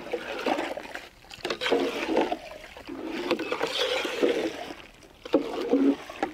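Steel ladle stirring milk in a large metal pot: the liquid sloshes in repeated uneven swishes, with the odd scrape or tap of the ladle against the pot.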